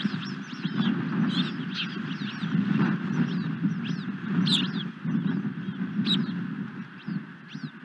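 Osprey calling: a run of short, sharp, downward-slurred whistled chirps, repeated in clusters, over a steady low rumble.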